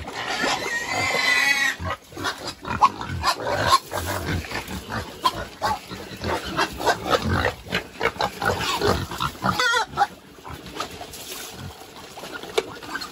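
Crossbreed native pigs feeding, a string of quick smacking chomps and grunts, with a high squeal in the first second or two and a short one about ten seconds in.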